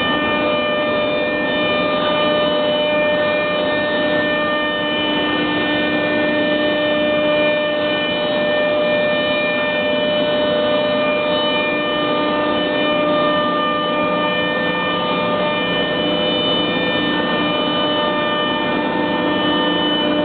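Industrial CNC router machinery running under power, a steady hum and whine that holds a constant pitch throughout.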